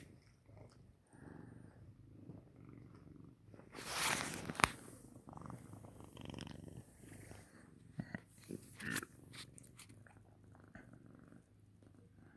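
Domestic cat purring steadily, close up. About four seconds in there is a brief noisy burst with a sharp click, and a few smaller clicks come later.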